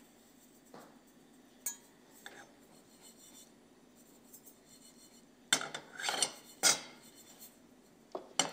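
Granulated sugar poured from a small glass into a dry nonstick frying pan for caramelizing: a rasping hiss of grains with clinks of glass and pan, coming after a quiet stretch with a few faint clicks.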